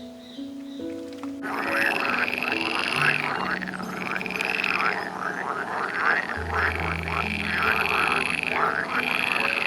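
A dense chorus of rapidly repeated animal calls that starts about a second and a half in, over background music with low held notes.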